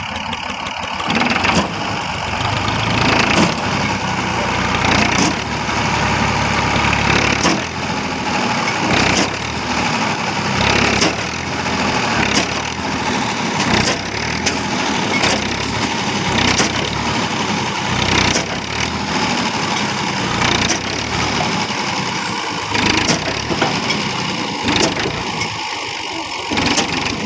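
Tractor engine running loudly, with repeated knocks and clatter throughout.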